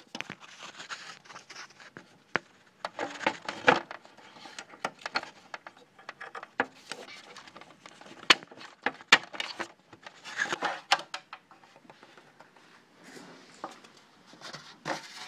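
Handling noise from working on an opened portable TV: scattered clicks and taps with rubbing and rustling as the plastic cabinet, chassis and wiring are handled, with a few louder stretches.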